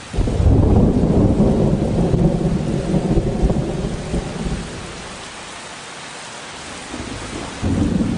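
Thunder rumbling over steady rain. A loud rumble breaks in at the start and fades over several seconds, then a second rumble rises near the end.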